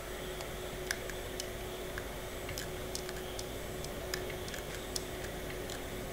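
Scattered small sharp ticks and scratches of the coating being scraped off a keyboard connector pin, over a steady low electrical hum.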